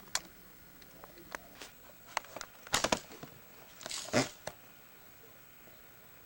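Handling noise: scattered sharp clicks and taps, with a short patch of rustling crackle about three and four seconds in.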